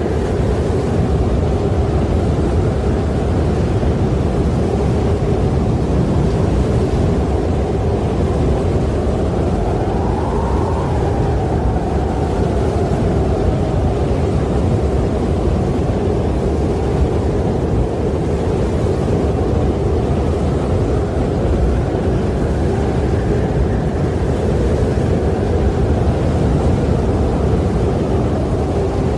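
Wind blowing steadily, a low rushing with slow swells and a faint howling whistle that rises and falls in pitch about ten seconds in.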